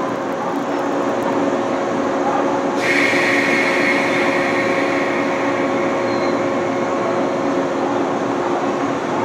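JR West KuMoYa 443 series two-car electric inspection train moving slowly, its running gear and electrical equipment giving a steady low hum. About three seconds in, a hiss with a high squealing note sets in and carries on.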